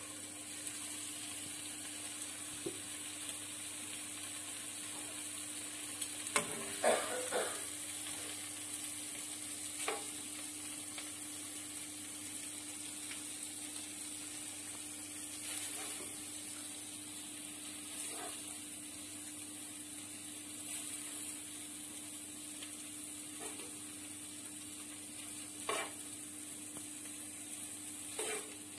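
Pieces of green chicken tikka sizzling in a hot nonstick frying pan, a steady frying hiss. A spatula scrapes and taps against the pan every few seconds as pieces are lifted out, with a cluster of knocks about six to seven seconds in. A faint steady hum runs underneath.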